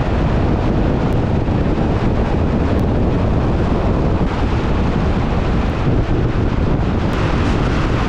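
Steady low rumble and hiss of road and wind noise from a moving car.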